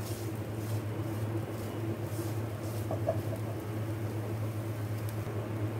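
A silicone spatula stirring and scraping shredded chicken around a non-stick wok, giving soft scrapes every second or so, over a steady low hum.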